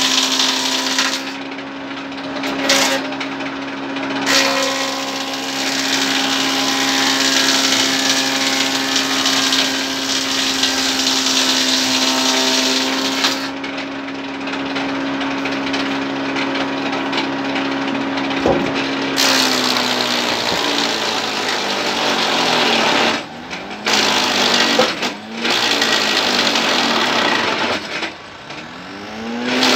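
A sawmill band saw cutting timber as planks are fed through: a steady motor hum under a dense rasp of blade on wood, with a few short gaps. About two-thirds of the way through, the hum falls in pitch and the cutting becomes uneven with brief drops, then the pitch rises again near the end.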